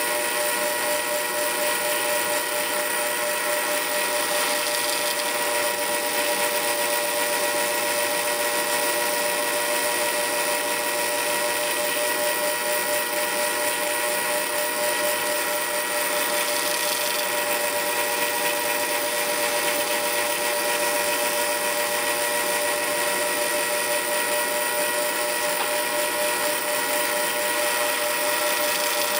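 South Bend Model A lathe running steadily with a constant whine, its tool taking facing cuts across a large nut threaded onto the spindle.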